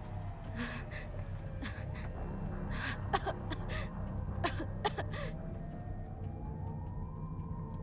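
A woman's ragged gasping breaths and short whimpers, about ten of them, some sharp and voiced. Behind them are a steady low drone and a single slow wailing tone that falls and then rises again, like a distant siren.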